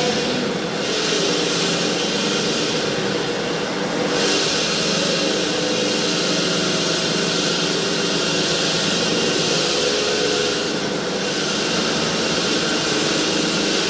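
Stone-cutting bridge saw with a diamond blade running steadily: a constant mechanical hum under a strong hiss.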